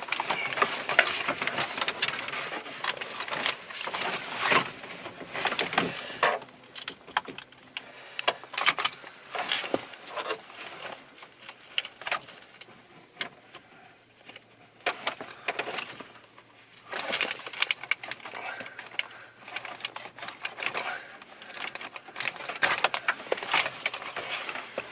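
Irregular plastic clicks, rattles and knocks of hands working in a dashboard as the old radio's wiring plugs are unplugged and the unit is lifted out, with a quieter stretch in the middle.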